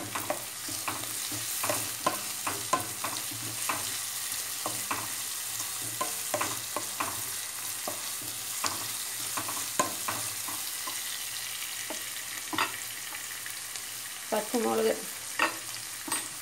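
Sliced onions sizzling in hot oil in a nonstick pan, stirred with a wooden spatula that taps and scrapes the pan in irregular short clicks over a steady frying hiss.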